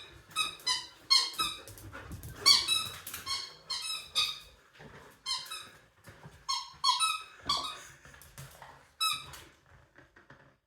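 Squeaky döner-kebab toy being squeezed over and over as a dog chews on it: a rapid series of short, high squeaks, often in quick pairs, stopping about nine seconds in.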